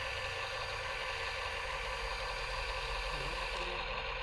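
A steady mechanical hum with hiss, unchanging throughout.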